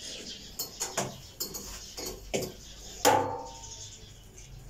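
Clatter of a generator's wiring and fittings being handled and pulled off: a few light clicks and knocks, then a sharper metallic clank about three seconds in that rings briefly.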